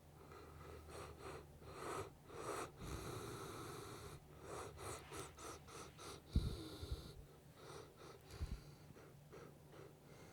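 Saint Bernard asleep and snoring, a series of breathy snores and short snorts in quick runs. About six seconds in there is a sharp low thump, the loudest sound.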